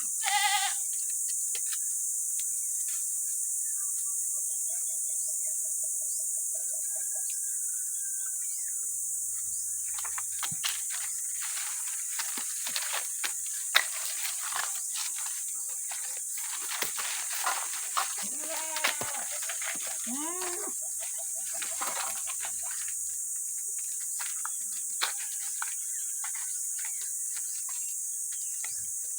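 A goat bleats once right at the start, then scattered rustling and small clicks with a few short calls, over a steady high-pitched hiss.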